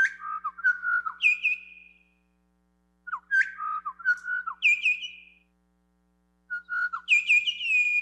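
Pied butcherbird song played back through the sound system: the same phrase of fluting, gliding whistles three times with short pauses between. Each phrase ends in higher falling notes, and the bird develops the song a little more each time.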